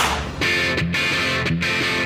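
Music with guitar, starting about half a second in, after a short rush of noise at the very start.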